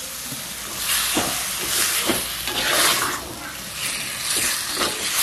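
Raw mutton fat sizzling in hot oil with fried onions in a clay pot, stirred with a wooden spoon: a steady hissing sizzle that swells about once a second with each turn of the spoon, with light scrapes and knocks of the spoon against the pot.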